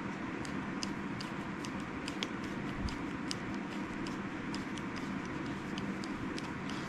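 Small, irregular clicks and ticks from a Zebco 33 spincast reel's handle being fitted and threaded on, over a steady background hum.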